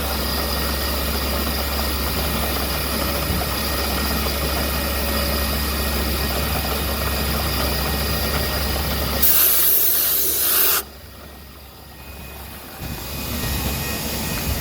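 CNC machine running with a steady hum and a few steady high tones. About nine seconds in a loud hiss lasts for a second and a half, then the sound drops off sharply and builds back up near the end.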